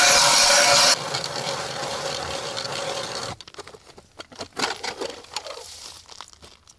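Hand-cranked ice auger grinding its way into lake ice. The sound is loud for about the first second, continues a little fainter, and stops about three seconds in. It is followed by scattered light crunches and scrapes on the ice.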